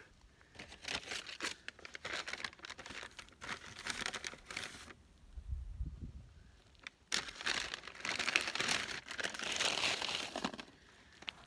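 Paper takeout bag rustling and crinkling as it is handled and opened and a burger box is pulled out of it. It comes in two spells of rustling, with a pause about five to seven seconds in that holds only a short low rumble.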